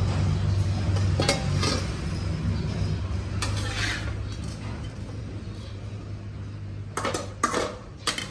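Metal spatula scraping and clinking against a steel wok and a stainless steel bowl while scooping cooked minced beef across, with a quick run of sharper clinks near the end. A steady low hum runs underneath.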